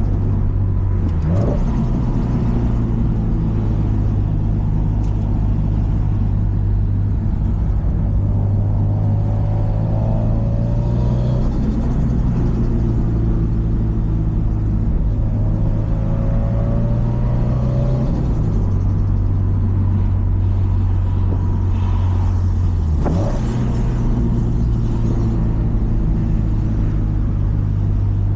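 Subaru Impreza WRX STI's EJ207 2.0-litre turbocharged flat-four engine running steadily under way, with a low rumbling note. Its pitch dips briefly about a second in and again near 18 and 23 seconds, then settles back.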